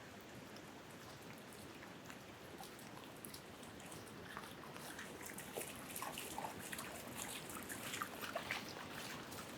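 Wind blowing through treetops, a steady rush, with a scattered patter of small ticks and crackles that grows busier from about halfway.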